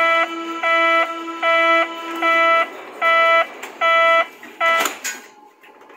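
Door-closing warning on a Berlin U-Bahn class HK train: seven even electronic beeps, about one every 0.8 seconds. The doors then shut with a sharp knock about five seconds in.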